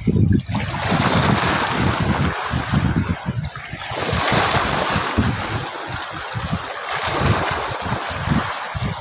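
Wind buffeting the microphone in irregular low gusts over a steady rush of moving water. The rush swells and eases, dipping briefly a little over three seconds in.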